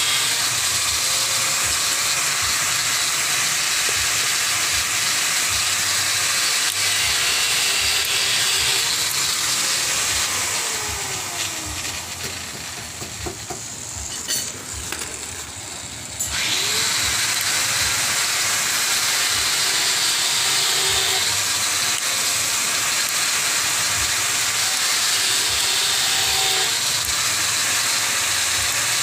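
Electric motor and geared axles of a homemade wired RC truck chassis running with a steady whirring hiss. About ten seconds in it winds down and goes quieter, then winds back up to full speed some six seconds later.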